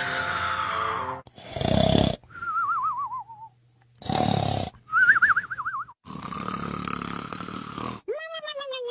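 Exaggerated comic snoring: two loud snores, each followed by a wavering whistle on the out-breath that falls in pitch, then a longer snore with a steady hum in it, ending in a falling whistle about eight seconds in.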